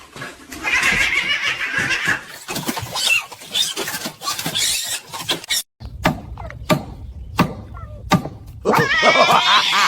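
Animal calls, cat meows among them, mixed with some laughter. The sound drops out briefly a little past halfway, a few sharp clicks follow, and a run of wavering cries comes near the end.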